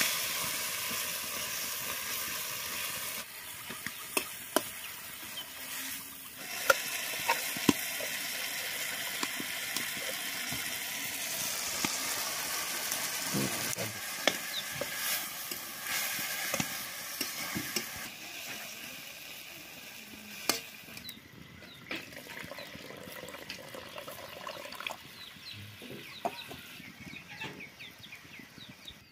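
Tomatoes sizzling in hot oil in a steel kadai, with a flat metal spatula scraping and clicking against the pan as they are stirred. The sizzle gets quieter in the last several seconds.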